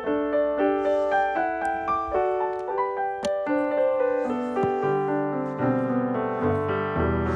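Background music: a gentle piano melody with chords, notes struck at an even pace, with a lower bass line entering about five seconds in.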